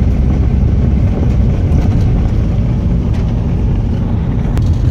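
Four-wheel-drive vehicle driving on a gravel road, heard from inside the cabin: a steady, loud low rumble of tyres on gravel and engine. A single light click near the end.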